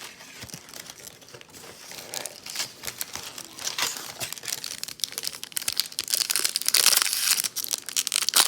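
Plastic wrapper of a trading card pack crinkling as it is handled and torn open, growing louder and busier about three-quarters of the way in.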